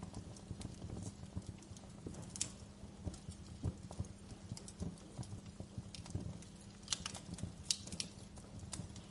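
Wood fire crackling in a fireplace: irregular sharp pops and snaps over a steady low rumble of the flames, with a few louder pops about two and a half seconds in and again around seven to eight seconds.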